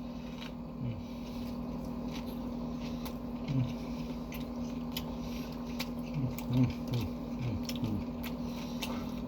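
A person chewing a Subway sub sandwich, with small wet mouth clicks and a few brief low hums, over a steady electrical hum.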